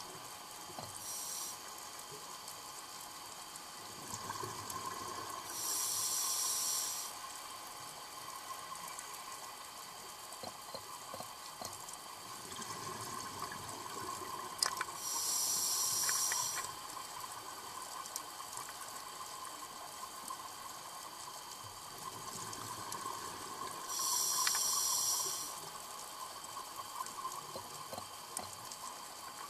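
A scuba diver breathing underwater through a regulator: a loud hiss of breath about every nine seconds, each lasting a second or two, with bubbling rumble between.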